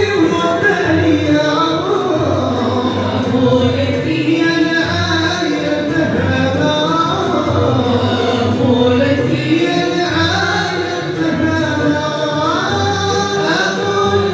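Live Moroccan madih, a Sufi praise song: male voices singing an ornamented melody, accompanied by violins played upright on the knee, ouds, and a frame drum keeping a steady beat.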